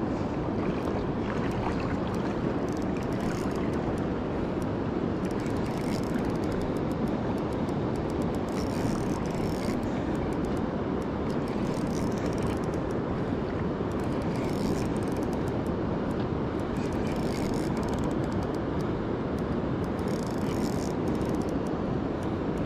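Steady rushing of river water pouring from a dam's outflow, an even, unbroken noise.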